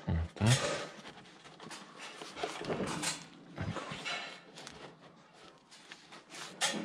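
Scattered knocks, rustles and breaths as the attic stair unit is handled and set into place in the ceiling opening; the loudest bursts come just after the start and again about three seconds in.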